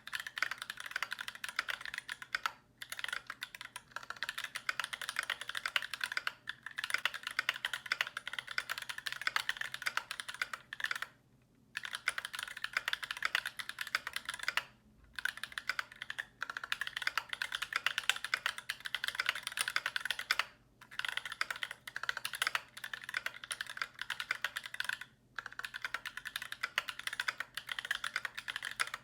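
Fast typing on a KBD75 mechanical keyboard with stock, unlubricated Holy Panda tactile switches in an aluminium plate: a continuous clatter of keystrokes, broken by brief pauses every few seconds.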